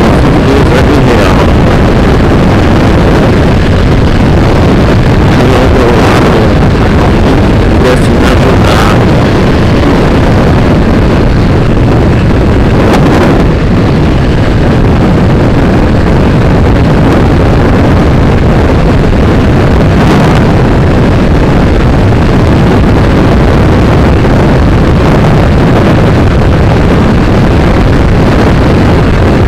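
Motorcycle riding at road speed: heavy wind buffeting the camera's microphone, with the bike's engine running steadily under it.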